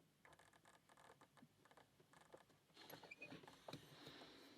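Faint scratching and light clicking of a lock pick and tension tool working the pins inside a small brass padlock.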